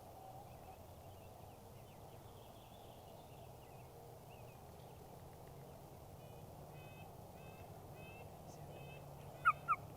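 Songbirds singing faintly in the morning woods, with a run of short repeated chirps, then two loud short turkey yelps near the end.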